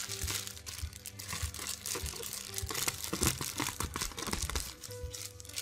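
Clear plastic air-cushion packaging wrap crinkling and crackling irregularly as it is handled and pulled out of the box.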